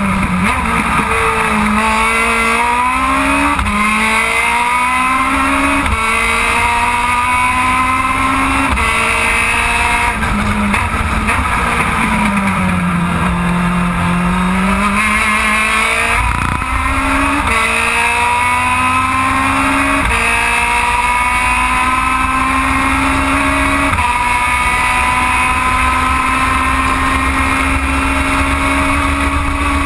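Onboard sound of an Aussie Racing Car's Yamaha 1300 cc four-cylinder motorcycle engine at full throttle. It climbs through the gears, the pitch dropping back at each upshift about every two seconds. Around the middle it comes off for a corner, the pitch sagging low and then recovering, before it pulls up through the gears again with longer runs between shifts.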